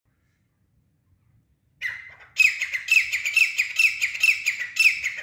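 Caged grey francolin (teetar) calling, the female call used as a decoy in hunting. A brief note about two seconds in, then a loud, fast run of repeated notes, each falling in pitch, about six a second, which stops abruptly near the end.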